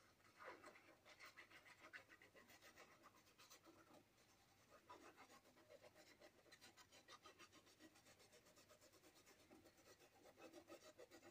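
Fine tip of a liquid glue bottle scratching across the back of a sheet of paper as glue is laid down: faint rapid ticking scratches, with short breaks where the tip lifts.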